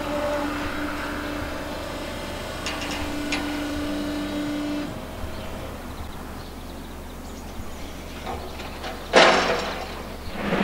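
Railside sound with a steady hum that stops about five seconds in, then about nine seconds in a short loud clatter as a cable-worked semaphore signal's arms are pulled to clear.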